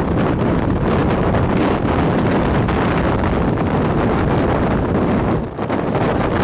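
Tornado winds blasting a moving vehicle, heard as loud, steady wind noise rushing over the microphone. It dips briefly about five and a half seconds in.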